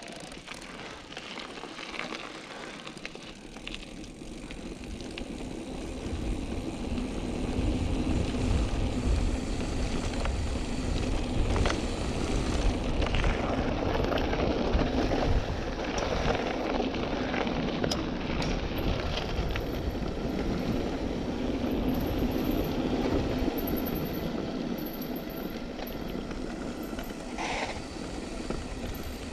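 Wind rushing over the microphone with tyre rolling noise while riding a bicycle, getting louder about six seconds in.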